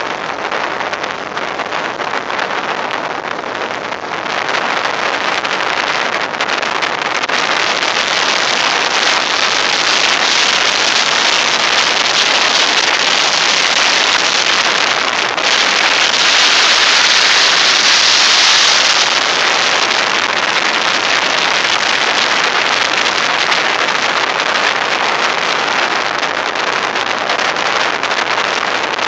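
Strong onshore wind driving sand across a beach: a loud, steady hiss that grows louder and brighter partway through, strongest for a few seconds in the middle, then eases back.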